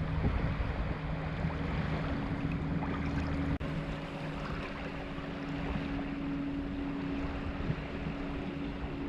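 Wind and choppy water washing, with a steady low hum underneath; the sound breaks off for an instant about three and a half seconds in.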